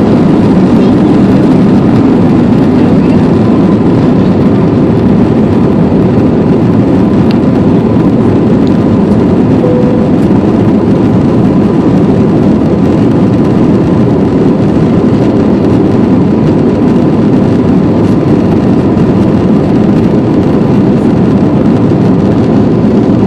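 Airliner during takeoff: a loud, steady engine and airflow noise, heavy in the low range, with a faint steady whine running through it.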